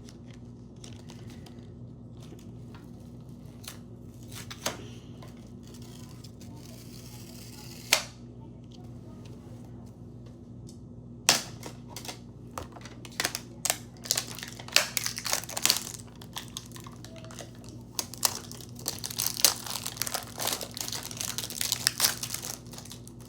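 Plastic toy packaging crinkling and tearing as it is opened by hand: a few separate crackles at first, then dense, rapid crinkling from about halfway through.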